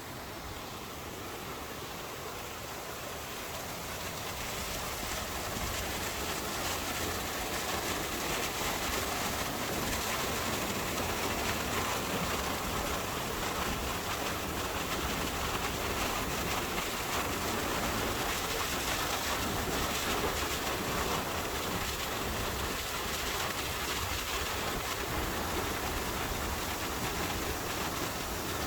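Rushing, splashing stream water close by, a dense steady wash of noise that grows louder over the first several seconds and then holds.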